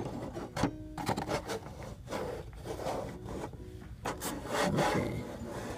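Hard plastic calibration tool being shoved and scraped around on a 3D scanner's turntable, with irregular rubbing scrapes and small knocks as its tab is worked toward the centre hole. Faint background music with repeating notes plays underneath.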